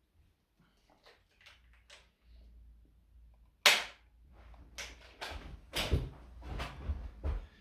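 Activator chiropractic adjusting instrument firing: one sharp spring-loaded click about three and a half seconds in, followed by several softer clicks and knocks. Light ticking and rustling of handling comes before it.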